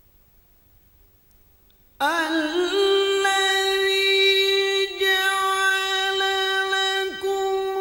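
Quran recitation by a male qari in the melodic mujawwad style. After about two seconds of near silence the voice comes in with a few quick wavering ornaments, then settles on one long, high, steadily held note sustained on a single breath.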